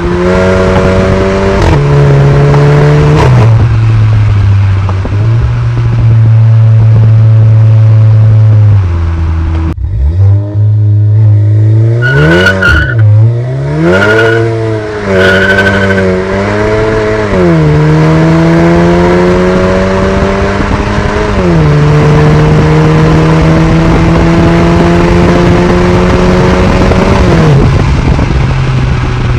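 Audi A3 with a sports exhaust driven under load: the engine's pitch climbs slowly and drops at each gear change. About ten seconds in, the throttle is lifted, and the revs rise and fall several times with three sharp pops from the exhaust.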